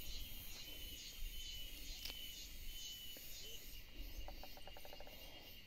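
Faint, steady chirring of insects, pulsing about twice a second, with a single click about two seconds in and a quick rattle of about ten clicks about four seconds in.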